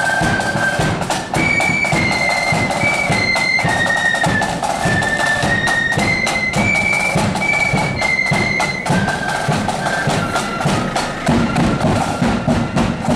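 Marching flute band playing a tune: high flutes in unison carry a stepping melody over a steady beat of drums.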